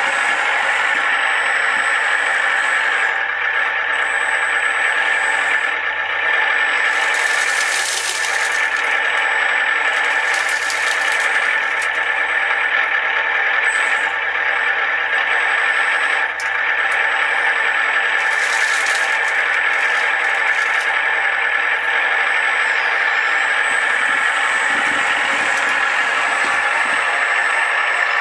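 Radio-controlled scale model trucks and construction machines running: a steady high whine with rattling, broken three times by short bursts of hiss.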